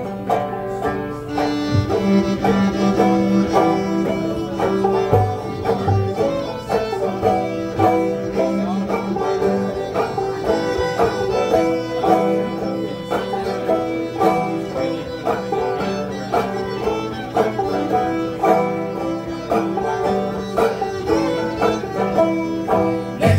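Acoustic string band playing an instrumental passage: fiddle carrying the melody over steady rhythmic five-string banjo picking, with a bass underneath.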